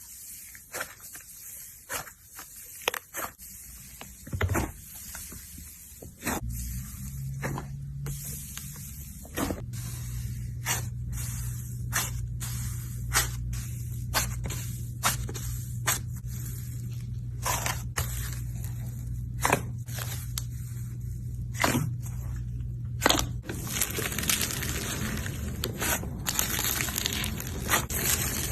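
Slime being squeezed and worked by hand, giving many sharp sticky pops and clicks. A steady low hum sits underneath for much of the time, giving way to a brighter hiss near the end.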